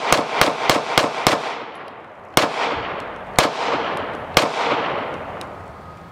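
Girsan MC9 9mm striker-fired pistol fired unsuppressed, each shot ringing off the surroundings: a quick string of about five shots in the first second and a half, then three slower shots about a second apart.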